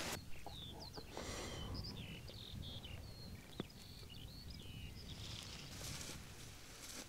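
Songbirds singing faintly, a scatter of short chirps and whistles, with a single sharp click about three and a half seconds in.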